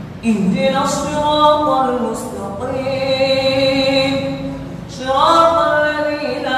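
Imam's melodic Quran recitation in Arabic, a single chanted male voice with long held notes, amplified through a microphone, with a fresh phrase starting shortly after the start and again near the end.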